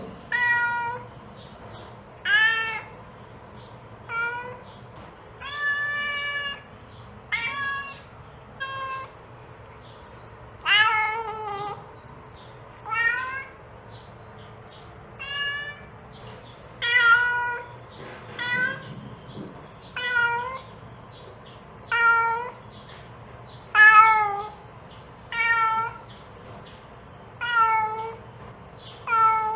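A mother cat meowing repeatedly to call her kittens: short, high calls, one every second and a half to two seconds, some with a rising-then-falling pitch.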